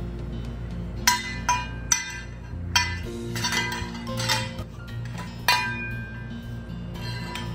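Toy pots, pans and utensils clinking and knocking together as a toddler handles them, several sharp clinks each with a brief ring, over background music.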